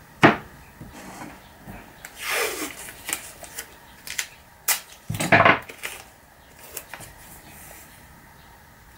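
Spruce strips knocking as they are handled and set down on a wooden workbench, and masking tape pulled off its roll with a short rip. A sharp knock comes just after the start, the rip about two seconds in, and the loudest knocks around five seconds in.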